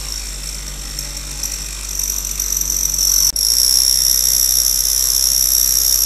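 Small battery-powered DC hobby motor running steadily, spinning the fan of a homemade model jet engine, with a high whine. It cuts out for an instant a little over three seconds in and comes back louder.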